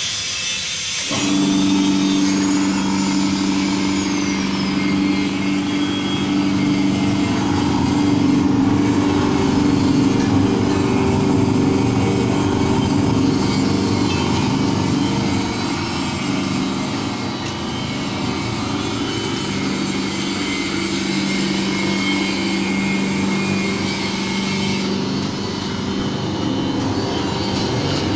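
Electric motor of a 50 kg dry mixer switched on about a second in, then running steadily with a hum as it drives the mixing paddles through a belt.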